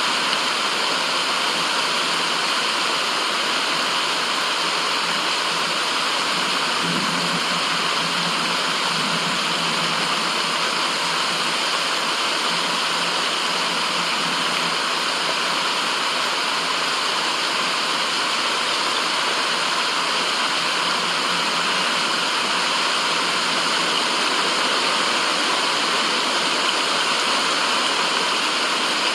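Running water rushing steadily, an even, unchanging noise.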